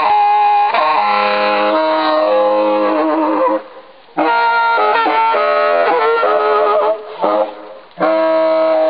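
Accordion music: a melody over held chords, played in phrases with short pauses between them, one about three and a half seconds in and another near the end.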